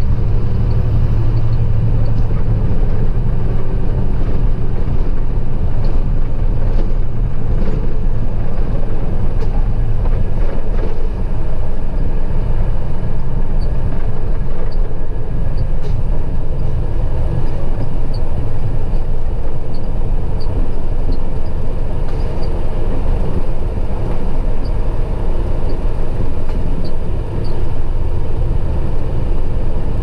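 Steady engine drone and road noise heard from inside the cab of a 2004 International truck cruising at an even speed.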